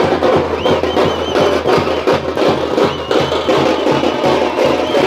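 Tamate (thappu) frame drums beaten in a fast, dense, loud rhythm, with a high wavering tone over the drumming briefly about half a second in and again around three seconds.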